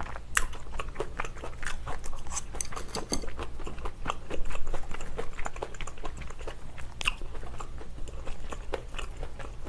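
Close-miked chewing of braised kimchi and pork: wet, crunchy mouth sounds and small irregular crackles. A few sharp clicks come from chopsticks and a spoon against the bowls, one just after the start and one about seven seconds in.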